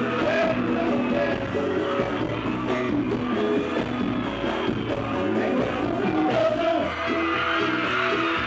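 Bahian pagodão band music with a steady loud beat and a singing voice.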